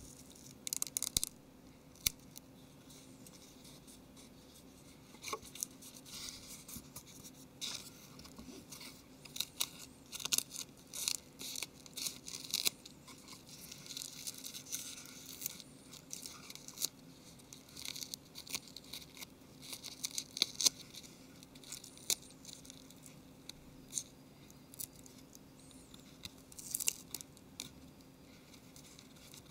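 Metallic shielding tape crinkling and rustling as fingertips press and smooth it down onto the back of a tablet LCD panel, in irregular short crackles.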